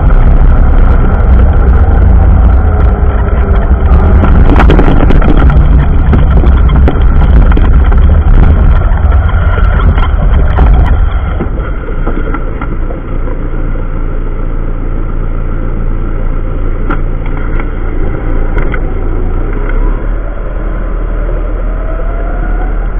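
John Deere 6420 tractor's four-cylinder diesel running, heard from the cab. For about the first eleven seconds it is driving along a farm track, loud, with heavy rumble and rattling. After that it runs more quietly while the front loader handles round straw bales, and the pitch rises near the end.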